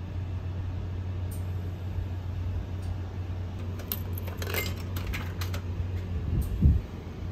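Coins fed into a vending machine's coin slot, clinking and clicking as they drop inside, about four seconds in, over a steady low hum. A short low thump follows near the end.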